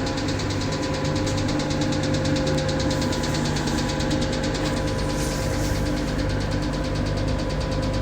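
Pico laser beauty machine running: a steady electrical and mechanical hum, likely its water-cooling pump and fan, with rapid, evenly spaced ticking.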